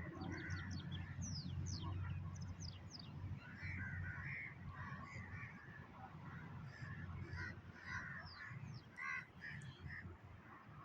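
Several birds calling and chirping, with many short quick chirps and harsher calls overlapping, over a steady low hum.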